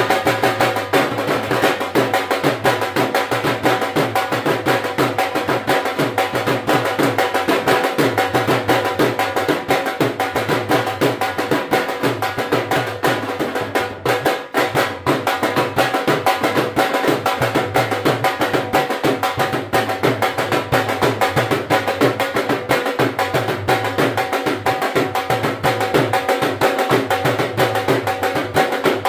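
Dhol drumming in a fast, steady beat over music, with steady held notes underneath. It drops briefly about halfway through, then carries on.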